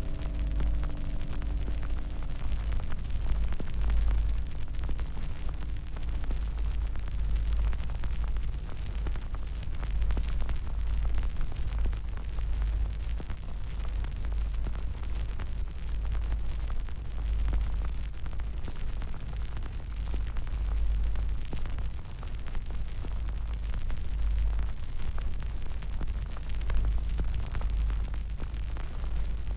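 A large fire burning: a deep steady rumble with constant crackling and popping.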